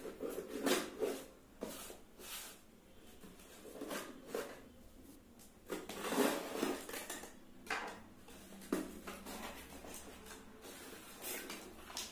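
A small cardboard box being opened and handled by hand, with irregular scrapes, taps and rustles; the loudest cluster comes about halfway through.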